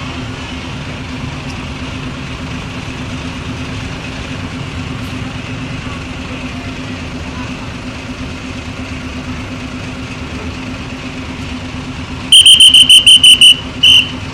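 Bus engine idling steadily, then near the end a telolet-style novelty horn sounds a quick run of about eight short, loud, high-pitched toots on one pitch, a brief pause, and one more toot.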